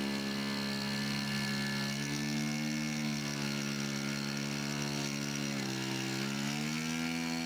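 Model airplane engine running steadily; its speed drops suddenly a little past halfway through, then rises again.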